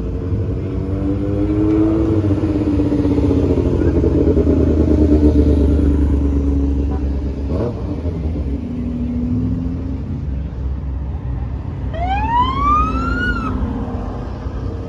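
Car engines running, one swelling and dipping in pitch as it revs during the first few seconds. Near the end comes a short rising whine lasting about a second and a half.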